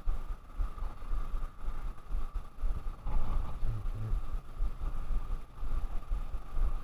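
Wind buffeting the microphone in heavy gusts over the steady whir of a spinning reel being cranked.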